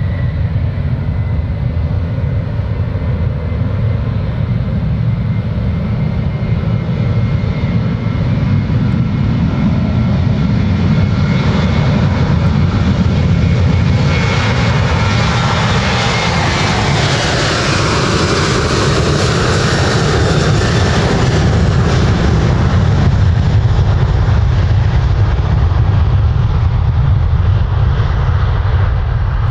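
Boeing 737-800's twin CFM56-7B turbofans at takeoff thrust through the takeoff roll: a heavy low rumble throughout, a thin fan whine near the start, and a hiss that swells as the jet passes about halfway through, then eases off as it rotates.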